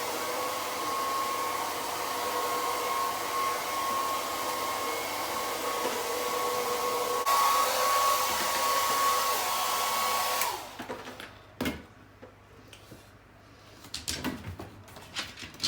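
Hair dryer blowing steadily with a high whine over the rush of air. It gets a little louder about seven seconds in and switches off about ten and a half seconds in, leaving a few scattered clicks and knocks.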